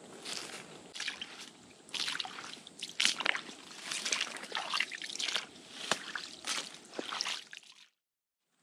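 Footsteps squelching and sloshing through waterlogged swamp ground and shallow water, in uneven steps, cutting off suddenly near the end.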